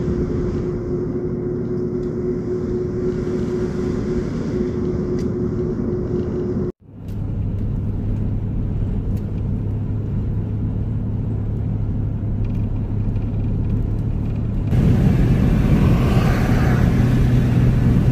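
Van driving, with engine and tyre noise heard from inside the cab as a steady rumble with a low hum. The sound cuts off abruptly about seven seconds in, picks up again, and steps louder with a deeper hum near the end.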